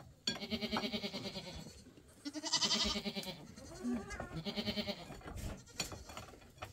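Goats bleating three times in a row, each bleat wavering, the middle one the loudest.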